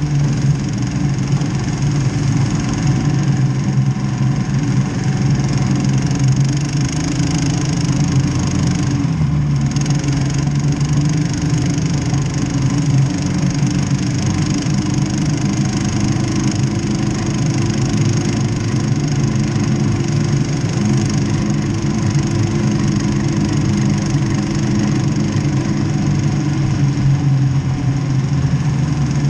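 Snowdog tracked snow tractor's single-cylinder petrol engine running at a steady speed while the machine travels over snow, with small rises and dips in engine speed.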